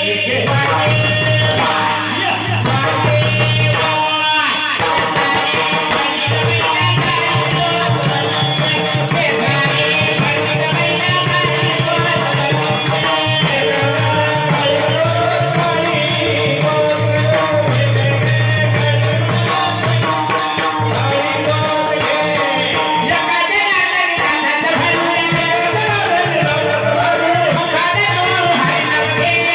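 Marathi bharud folk music: jingling, rattling hand percussion keeps a fast, steady beat over a held low drone, with a wavering melodic line above.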